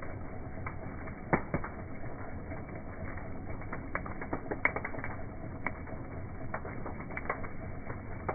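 Large bonfire crackling: irregular sharp pops and snaps over a steady rushing noise of the burning fire, with the loudest pops about a second and a half in and near the middle.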